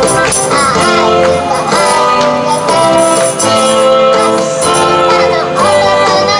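A pop song: a backing track with a steady jingling, tambourine-like beat and a young girl singing the melody over it.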